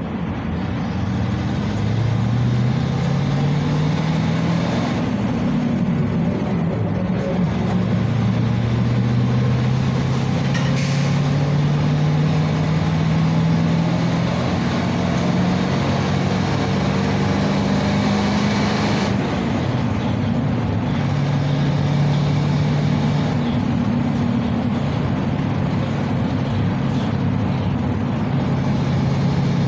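Inside a 2017 PAZ 320302-22 bus on the move: its ZMZ-52450A V8 petrol engine climbs in pitch as the bus pulls away, drops back twice at gear changes, then runs steadily, over a steady hum of road noise.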